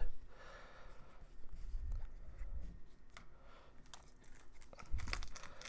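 Quiet handling noise of trading cards and a foil-wrapped card pack: soft scattered taps and rustles as a pack is picked up from the box, with a louder rustle about five seconds in.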